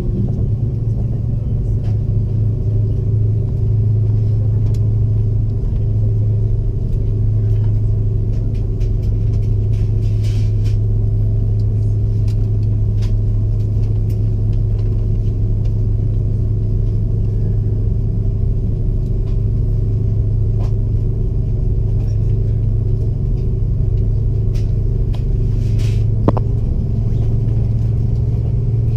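Steady low drone inside the cabin of an Airbus A330 on the ground, with a few faint clicks.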